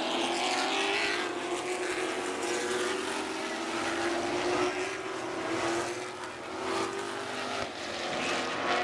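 A pack of Super Late Model stock cars racing on a short oval, their V8 engines running hard together in a steady drone whose pitch bends slightly as cars pass.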